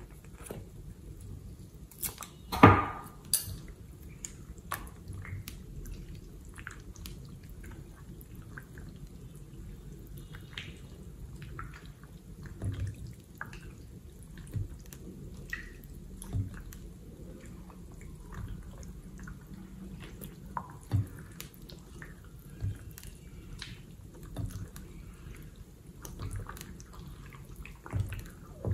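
Wet, sticky slime being squished, stretched and pulled apart by hand in a glass bowl: irregular wet squelches and small pops, the loudest about two and a half seconds in.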